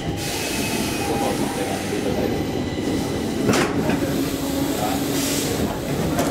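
Stockholm Metro C6 subway car in motion, heard from inside: a steady rumble and rattle of wheels on the track, with a sharp click about halfway through and a faint low hum in the second half.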